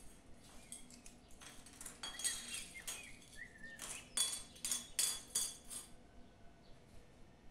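Metal button-badge shells and backs clinking as they are set down and shuffled on a wooden table: a run of sharp clicks with a brief metallic ring, thickest from about four to five and a half seconds in. Faint bird chirps in the background.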